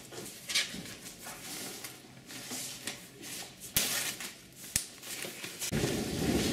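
Paper rustling as sheets and envelopes are handled and shuffled, with two sharp clicks. Near the end it cuts to a louder, steady rushing noise.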